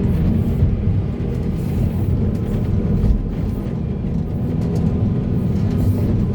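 Heavy diesel earthmoving machinery running steadily with a low, even engine drone.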